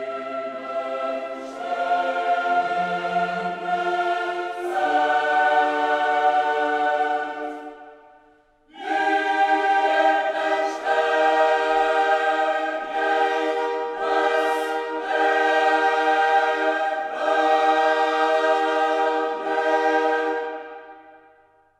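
Background music of a choir singing long held chords, in two phrases with a short break about eight seconds in, fading out near the end.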